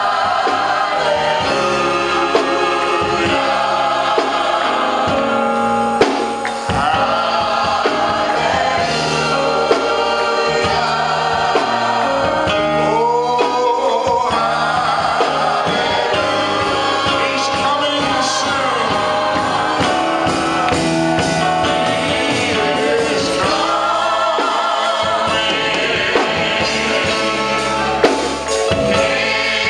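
Gospel praise-and-worship music: voices singing together over instrumental backing with a steady run of drum hits.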